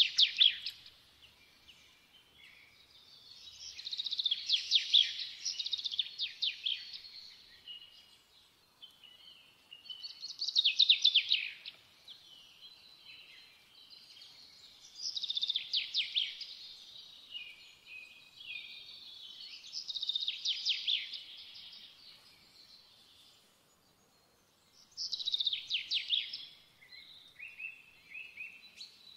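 Birdsong: a songbird singing phrases of rapid trilled notes, each a second or two long, repeated about every five seconds.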